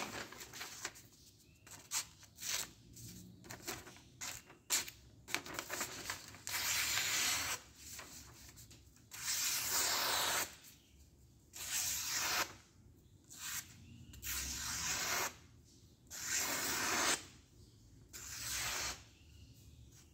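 A steel camping-knife blade slicing through a sheet of lined notebook paper in repeated strokes. Each stroke is a hissing swish of about a second, six in all, with short paper crinkles in the first few seconds.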